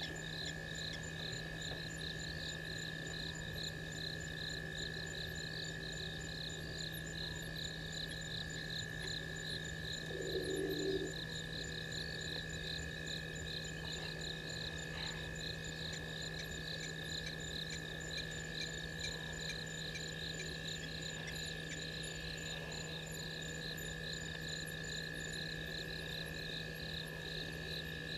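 Night chorus of frogs and insects at a waterhole: a steady ringing trill and a fast, even pulsing call carry on throughout over a low steady hum. About ten seconds in there is one short, louder, lower call.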